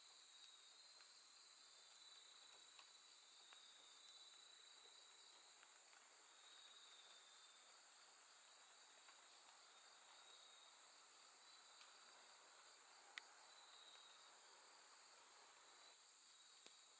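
Faint chorus of late-summer night grass insects such as crickets: a steady high trill, with shorter, lower chirps coming and going. In the first few seconds a series of very high buzzing bursts comes about once a second, and a single sharp click sounds about 13 seconds in.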